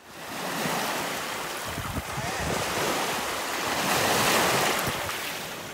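Small waves breaking and washing up a pebble beach, the surf swelling to its loudest about four seconds in, with some wind buffeting the microphone.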